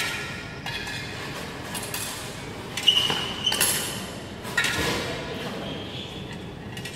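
Steel sparring swords and bucklers clashing in a sword-and-buckler bout: a handful of sharp metallic strikes, a couple of them ringing briefly, echoing in a large hall.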